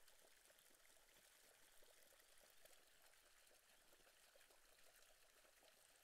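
Faint, steady bubbling and splashing of water churned up by a 50 mm (DN50) airlift pump held at its optimal depth in a tank, lifting water with air bubbles.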